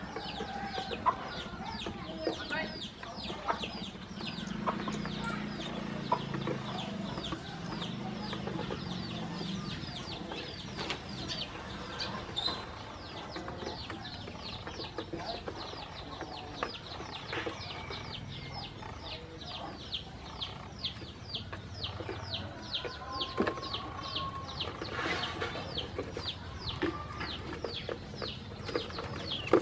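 Ducklings peeping, a dense stream of short high peeps several times a second, busier in the second half, with light taps of bills pecking feed off the plastic truck bed.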